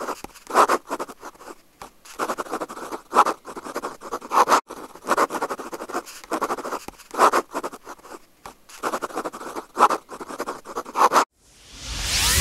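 Choppy, scratchy noise in irregular pulses that stops about eleven seconds in, then a short rising whoosh near the end.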